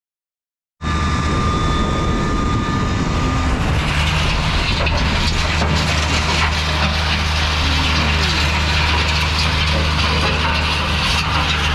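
Heavy diesel engine of a farm vehicle running steadily, cutting in abruptly about a second in.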